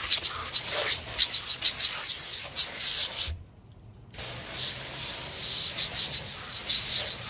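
Water spraying onto a truck's alloy wheel and tire, wetting it down before a wheel cleaner is applied. It is a steady hiss with a crackle of droplets on the metal. It stops a little after three seconds in, starts again under a second later, and cuts off suddenly near the end.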